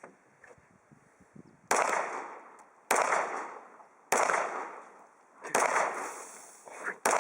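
Glock 19 9mm pistol fired five times at a steady pace, a little over a second apart, each shot followed by a fading echo.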